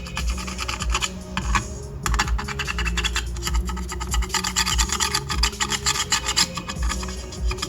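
A brush scrubbing an amplifier circuit board wet with thinner, in quick back-and-forth scratchy strokes.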